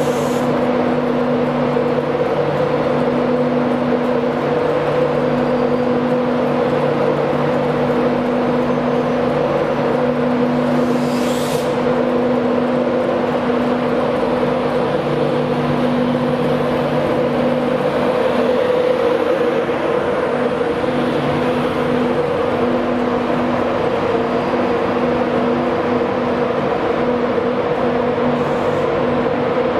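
Class 91 electric locomotive standing at the platform with its cooling fans and electrics running: a steady hum at several fixed pitches over a whirring rush. A short hiss about a third of the way in.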